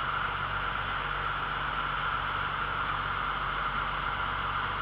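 Vintage Oliver tractor engine idling steadily, with an even hiss over it.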